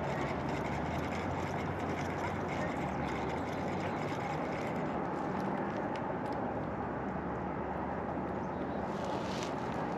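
A steady low mechanical hum with a constant hiss over it, unchanging in level, with a few faint ticks near the end.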